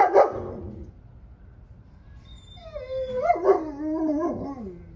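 A dog barks sharply, then about two and a half seconds in lets out a drawn-out, wavering cry that sinks in pitch near the end.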